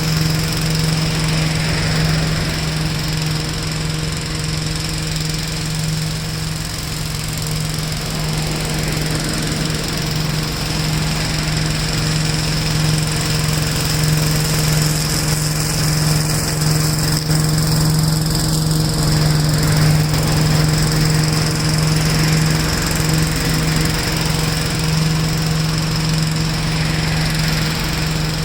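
1969 Gravely L-I walk-behind tractor's single-cylinder engine running steadily at working speed while the machine mulches leaves.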